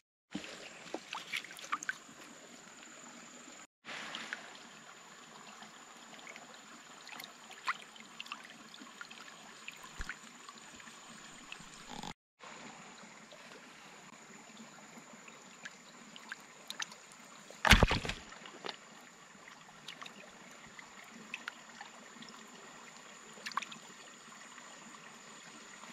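Trickling water with scattered light clicks and small splashes, over a faint steady high whine. About eighteen seconds in comes one loud thump or splash.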